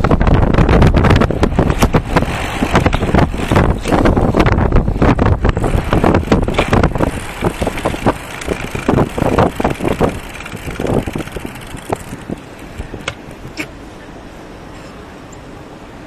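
Wind buffeting and road rumble on a rear-facing bicycle dashcam's microphone while riding, crackling and gusting, then dying down as the bike slows to a stop and leaving a steady low hiss. Two sharp clicks sound about thirteen seconds in.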